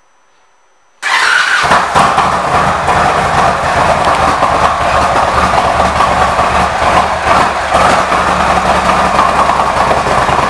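2019 Indian Chieftain Dark Horse's V-twin engine starting about a second in, then idling steadily.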